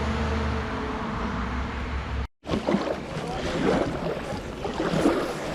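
Water and paddle noise around a kayak, over a steady low rumble. The sound drops out abruptly at a cut a little over two seconds in, then uneven splashing and water noise go on.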